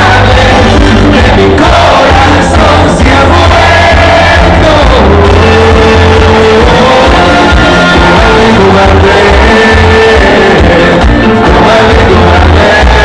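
Loud music with singing and a heavy bass beat, with some shouting from a crowd.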